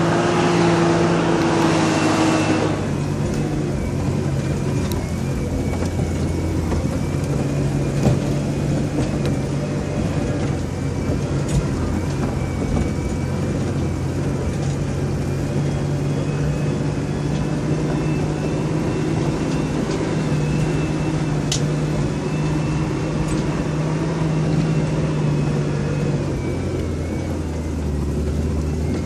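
Vehicle engine running steadily under load on a rough dirt climb, heard from inside the cab, with a faint high whine alongside. It is louder for the first couple of seconds, then settles, and a few sharp knocks from the bumpy track come through.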